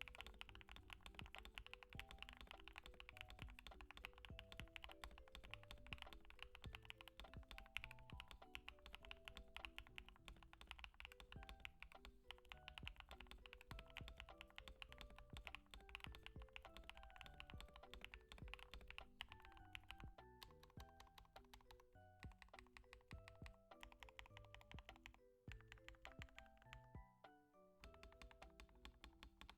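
Fast, continuous typing on a mechanical keyboard with Keygeek x MZ Y3 linear switches in an aluminum plate, under PBT keycaps. Soft mallet-percussion background music plays underneath.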